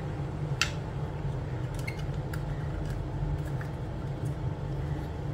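Scattered small clicks and taps of hard plastic and wires being handled as fingers work inside an opened metal detector's housing, the sharpest about half a second in, over a steady low hum.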